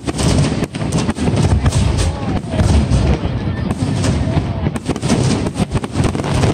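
Aerial fireworks display: many shells bursting in quick succession, sharp bangs over a continuous low rumble.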